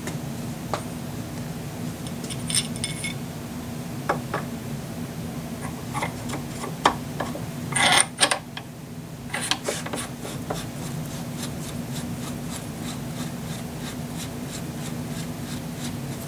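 Metal rifle parts and tools handled while a Geissele SMR rail is installed: scattered clicks and light metallic clinks, with a louder scraping rub about eight seconds in, over a steady low hum.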